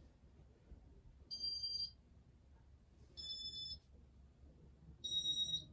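Three electronic beeps from a Casablanca Venus Halo ceiling fan's control, each about half a second long and about two seconds apart, the pitch shifting slightly from beep to beep.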